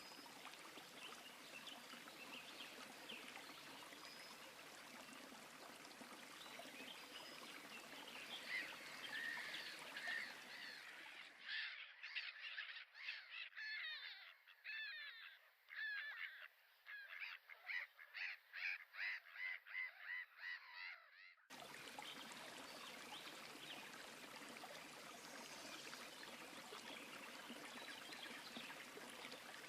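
Wild birds calling faintly over the steady rush of river water. For about ten seconds in the middle, the water noise drops away and a fast series of repeated bird calls stands out, several notes a second.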